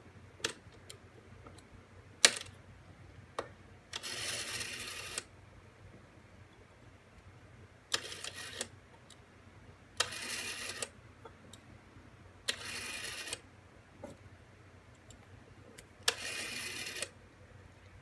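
Rotary telephone dial being wound and released five times, each time a sharp click and then about a second of the dial whirring back with its rapid pulse clicks, with a few lighter clicks of the finger on the dial in between.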